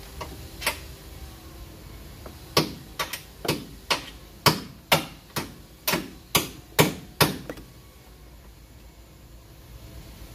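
Hammer blows on the steel front suspension of a Hyundai Elantra while a lower control arm is being fitted: two light knocks, then about a dozen sharp metal strikes, roughly two a second for five seconds, each ringing briefly.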